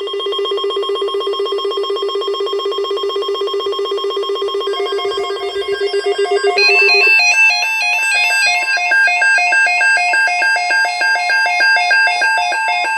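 Loud electronic alert tones: a fast-pulsing buzzy tone, joined about five seconds in by a second tone stepping quickly back and forth between two pitches, which carries on alone after about seven seconds. The tones signal an incoming severe-weather emergency alert.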